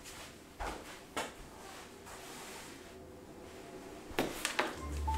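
A few scattered knocks and clunks of things being handled and set down while tidying a room: two about a second in, then three in quick succession near the end, with quiet room tone between.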